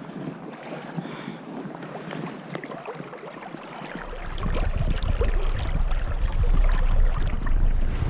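Water splashing and trickling close to the microphone. About halfway through, a low rumble of wind buffeting the microphone comes in.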